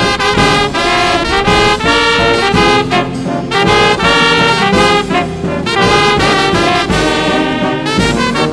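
Instrumental passage of Mexican brass band music with no singing: trumpets and trombones play the tune over a steady beat.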